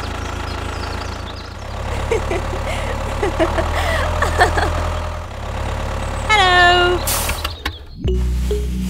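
Tractor engine sound effect running steadily, dubbed over a toy tractor, with short voice-like cartoon sounds over it and a falling pitched sound about six seconds in. A brief hiss follows, and music starts near the end.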